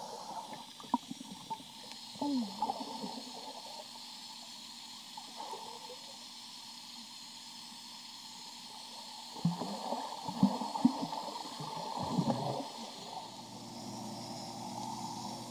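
Muffled gurgling and bubbling as heard through a camera held underwater in a swimming pool, with clusters of clicks and bubble blips about two seconds in and again from about nine and a half to twelve and a half seconds.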